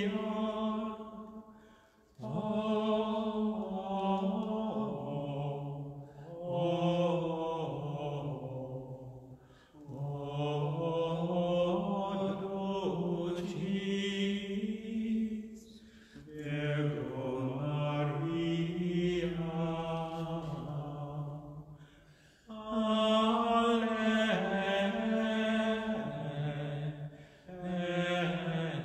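A man's voice singing unaccompanied plainchant in long, slow phrases, with short breaths between them.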